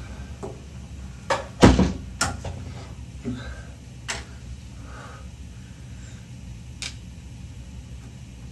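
Scattered sharp knocks and clacks, the loudest about one and a half seconds in and the last near seven seconds, over a steady low hum.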